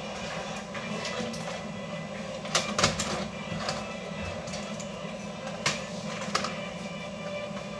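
Scattered light clicks and taps from handling a laptop, with a few louder knocks, over a steady low hum.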